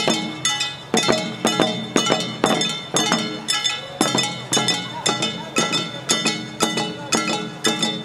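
Jangara nenbutsu odori hand gongs (kane) struck with mallets in a steady rhythm, about three strikes a second, each strike ringing on.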